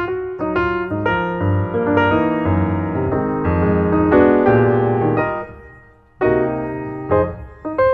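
Background piano music, struck notes and chords ringing on; the sound dies away briefly about six seconds in before new notes start.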